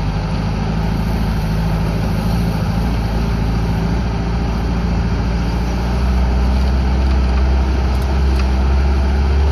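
Suzuki Samurai's four-cylinder engine running steadily as the vehicle crawls along a dirt trail, heard from inside the cab. It drones low and grows a little louder about six seconds in.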